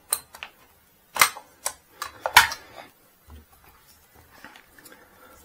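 Sharp clicks and knocks of an M4-style carbine being handled and set down on a table, about six in the first two and a half seconds, then only faint light clicks.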